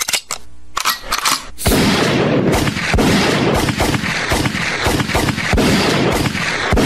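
Gunfire sound effect: a dense rattle of rapid shots with a few heavier bangs standing out, kicking in loudly about a second and a half in.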